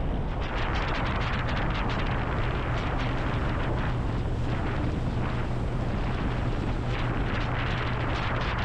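Speedboat engine running at cruising speed with a steady low drone, under heavy wind buffeting on the microphone.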